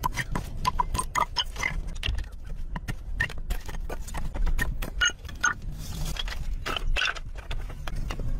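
Wooden poles and sticks knocking, clattering and scraping together as they are handled and laid in place, over a steady low rumble.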